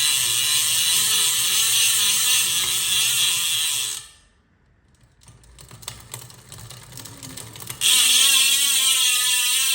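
Freehub of a new KORE lightweight rear wheel buzzing loudly as the wheel spins freely, its pawls ratcheting. The buzz stops about four seconds in, a few slower clicks follow, and a second loud buzz starts near the end.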